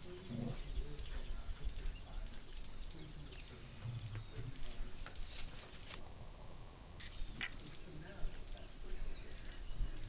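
A steady, high-pitched insect chorus, crickets or cicadas, with a faint low rumble beneath; the chorus drops out for about a second around six seconds in.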